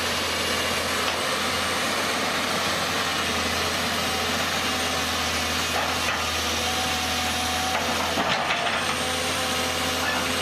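Excavator engine running steadily, with a constant low hum and hiss.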